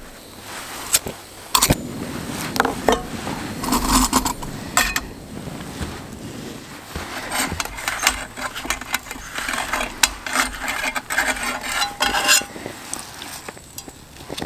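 Small frying pan clinking and scraping against a backpacking gas stove's pot supports as it is wiped clean by hand, with many sharp metallic clicks and rubbing scrapes, dying down near the end.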